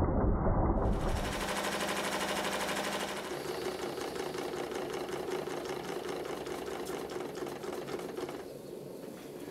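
Stuart triple-expansion model steam engine running at speed: a rapid, even clatter from its cranks, rods and valve gear. The sound turns duller and quieter near the end.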